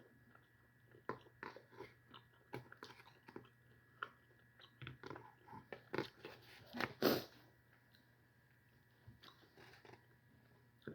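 A person chewing and biting food close to the microphone: a run of irregular soft crunches and wet clicks, loudest about seven seconds in, then quiet for the last few seconds.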